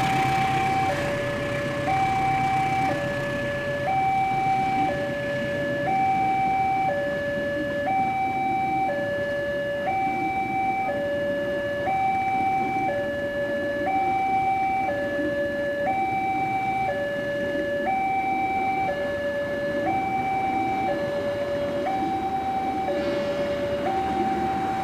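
Railway level-crossing electronic warning alarm sounding a steady two-tone hi-lo signal, switching between a higher and a lower tone about once a second: the crossing is closed for a passing train. Under it a passenger train rumbles over the crossing.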